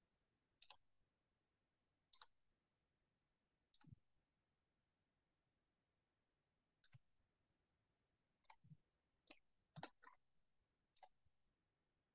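Faint, irregular clicks of a computer mouse, about nine in all, a few seconds apart at first and bunched close together near the end, over near silence.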